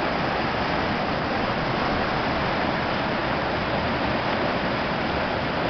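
Mountain stream rapids rushing over rock ledges and boulders: a steady, even roar of whitewater.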